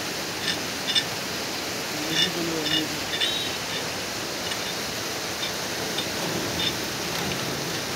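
Steady rush of a rocky mountain stream flowing under the bridge, with a few faint metallic clinks from the steel ironwork in the first few seconds.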